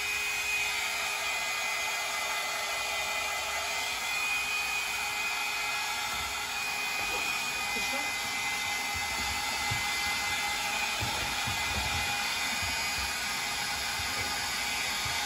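Small handheld hairdryer running steadily, its blower rushing with a thin high whine.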